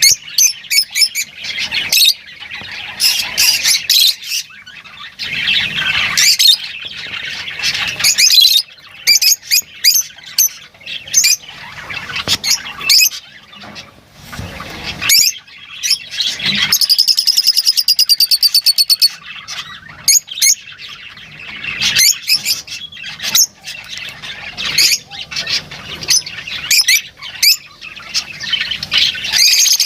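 Lovebirds chattering in a dense run of sharp, high-pitched squawks and chirps. A little past halfway, one bird gives a fast, buzzy trill lasting about two and a half seconds.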